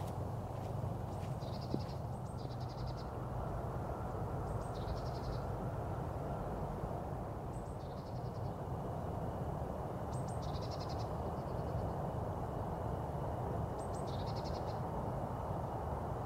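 A small songbird sings a short phrase every few seconds, a thin high note followed by a quick trill, over a steady low background rumble.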